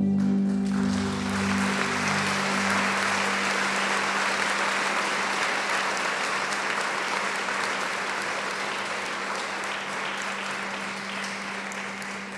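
An audience applauding as the song's final keyboard chord dies away; the clapping starts about a second in and fades near the end.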